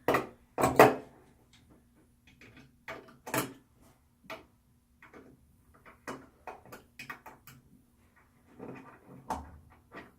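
Clicks and knocks of a screwdriver and metal towel-rack hardware being handled while a small set screw is undone, with two louder knocks in the first second and lighter irregular clicks after.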